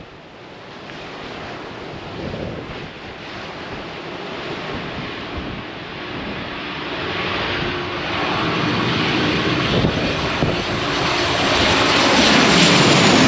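Jet airliner on final approach to land, its engine noise building steadily louder as it nears, with a faint steady whine showing through in the second half and the loudest point near the end.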